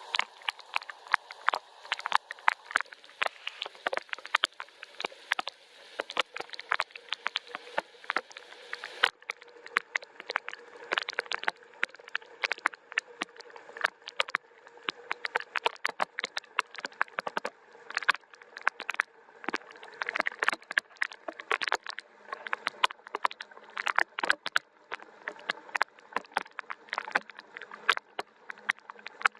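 Gentle rain: dense, irregular drops tapping and dripping close by, some much louder than others, over a faint hiss that loses its highest part about nine seconds in.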